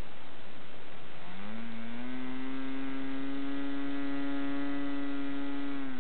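OS 40LA glow engine converted to diesel with a Davis Diesel Development head, turning a 12x6 propeller. It runs up from idle a little over a second in, rising in pitch, holds a steady higher speed, then begins to drop back toward idle near the end.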